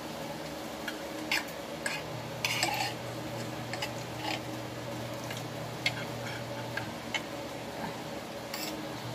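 Spoon clinking and scraping against a plate while eating, about a dozen small, irregular clicks, over a steady low hum.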